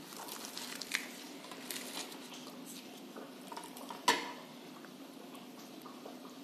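Faint handling sounds on a stainless steel plate: soft taps and squishes as fingers tear a poori and scoop potato masala, with one sharp clink against the steel about four seconds in.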